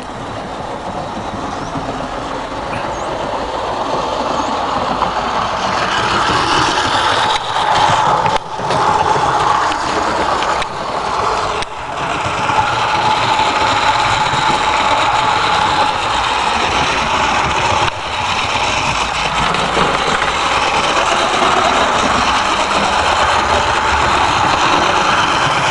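Darstaed model Tornado locomotive running along garden railway track: a steady motor whine over the rumble of wheels on the rails, growing louder as it approaches, with a few brief dips.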